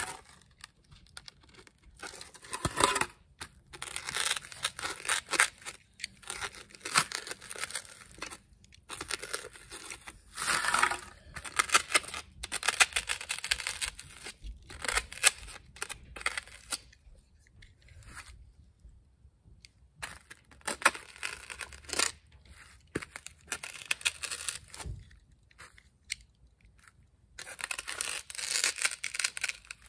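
Box cutter blade sawing through thick foam board: a run of scratchy cutting strokes, each up to a couple of seconds long, with short pauses between and a longer pause about two-thirds of the way through.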